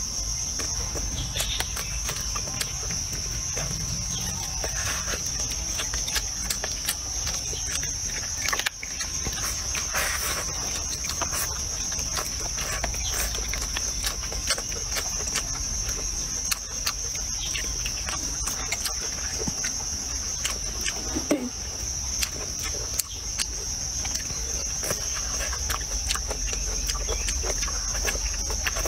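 A steady, high-pitched insect chorus drones throughout, briefly dipping twice. Over it come close, wet chewing and smacking sounds and small clicks of someone eating with chopsticks.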